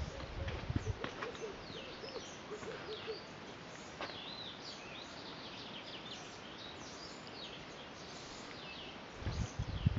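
Several birds chirping and calling, with many short high whistled notes, and a lower, wavering call repeating through the first three seconds. Bursts of low rumble near the start and again from about nine seconds in.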